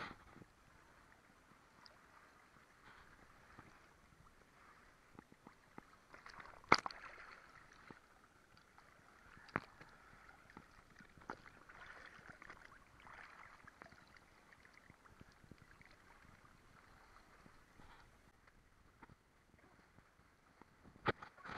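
Lake water sloshing and lapping softly right at the microphone as a swimmer moves slowly at the surface. A few sharp clicks cut through it, the loudest about seven seconds in and another near the end.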